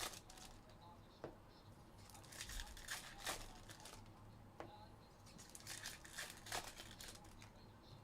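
Trading-card pack wrappers crinkling and tearing as packs are ripped open, in several short bursts with a few light ticks.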